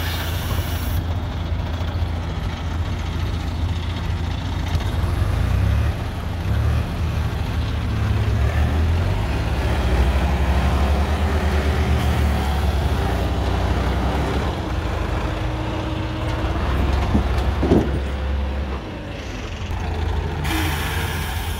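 Diesel engines of a Swaraj 735 FE tractor stuck in mud and an ACE 12XW hydra crane running with a steady deep rumble. A short sharp noise about 18 seconds in, and a hiss at the start and again near the end.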